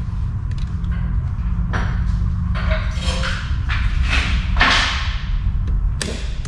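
Snap ring pliers clicking and scraping against the steel snap ring and housing at the output shaft of a transfer case, in several sharp metallic taps, over a steady low hum.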